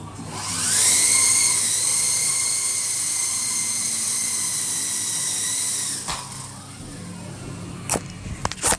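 Twister Bell 47 RC helicopter's electric motors and rotors whining as they spin up, holding a steady high whine while it hovers, then cutting off about six seconds in. A few sharp knocks come near the end.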